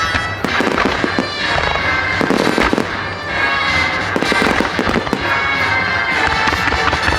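Starmine fireworks barrage: shells bursting and crackling in rapid succession over music played through loudspeakers.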